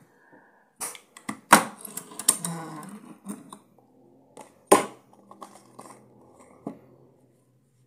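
Clatter of stationery being handled on a desk, a metal stapler and a box of staples: a string of sharp clicks and knocks, the loudest about a second and a half in and another near five seconds.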